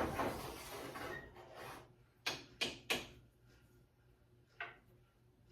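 Handling noises at the stove as a pot of boiling onions is turned down to low: a rubbing, scraping sound that fades over about two seconds, then three quick knocks or clicks in a row and one more a couple of seconds later.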